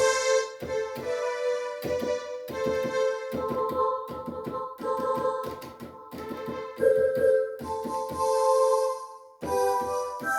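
Yamaha PSR-530 electronic keyboard playing a run of short notes and chords in one of its preset voices, with a few longer held notes.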